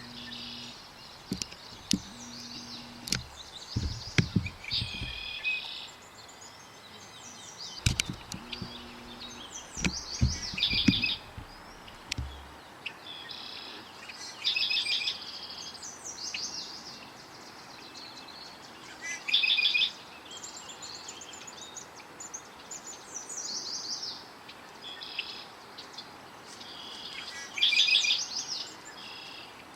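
Songbirds singing short trilling phrases every few seconds, with a few dull low thumps in the first dozen seconds.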